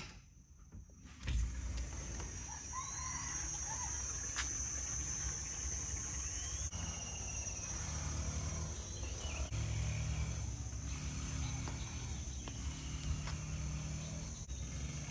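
Rural outdoor ambience: a steady high-pitched insect drone with a few scattered bird chirps over a low rumble on the microphone, and a single sharp click a little over four seconds in.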